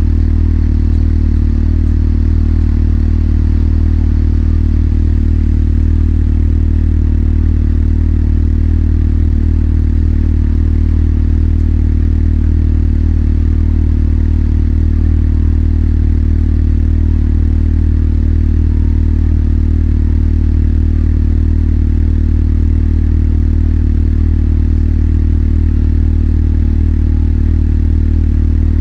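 Motorcycle engine running at a steady, unchanging low note, with no revving.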